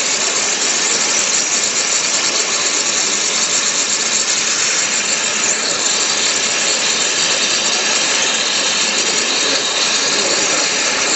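Flow abrasive waterjet cutting head cutting through 80 mm thick glass: a loud, steady hiss of the high-pressure jet and spray, unbroken throughout.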